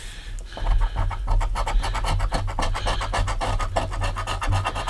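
Scratch-off lottery ticket being scratched off in rapid back-and-forth strokes, about ten a second, starting about half a second in.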